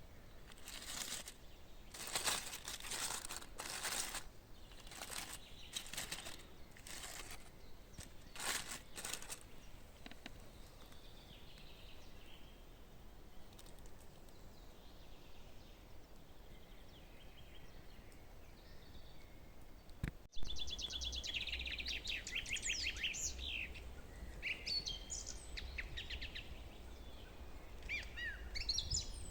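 A run of irregular rustling, crunching strokes for the first third, then songbirds singing. After a sudden change about two-thirds through, rapid trilling bird phrases come through clearly over a low rumble.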